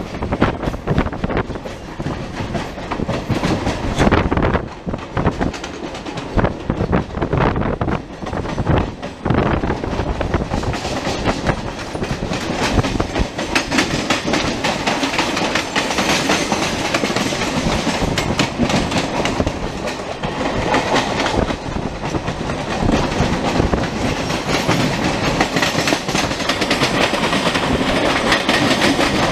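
Mumbai suburban EMU local trains running at speed side by side, heard from on board. A dense, steady rush of running noise with rapid clattering of wheels over rail joints.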